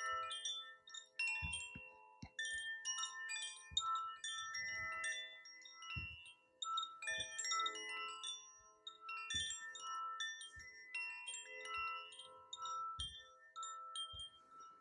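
Wind chimes ringing softly and irregularly, many bright metal tones at different pitches overlapping and hanging on, with a few faint low thuds here and there.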